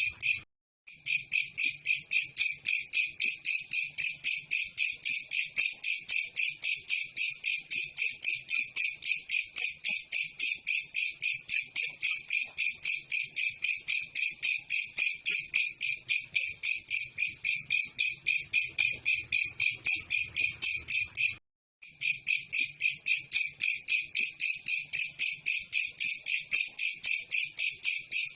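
Belalang kecek katydid calling: a fast, even run of short, dry, high chirps that breaks off briefly twice, just after the start and about 21 seconds in.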